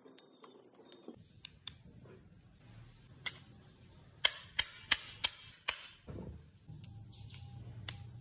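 A hammer tapping on a socket held over a brake master cylinder piston to seat a part onto it: one sharp metallic tap, then five quick ringing taps about a third of a second apart. Small clicks of the parts being handled come before.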